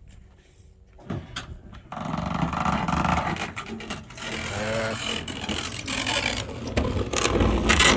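A garage door opener motor used as a homemade gate opener starts about two seconds in and runs steadily, driving a heavy gate, with a scraping where a part drags on plastic.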